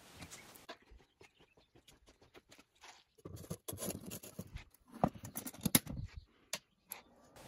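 A crucible loaded with bronze scrap scraping and knocking as it is handled and set into an electric kiln, followed by a few sharp single clicks near the end.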